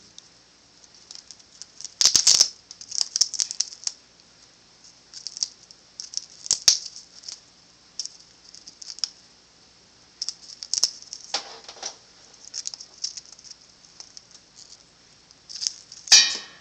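Bare-eyed cockatoo chewing on something held in its beak: irregular clusters of crisp crunching clicks, with one louder sound near the end.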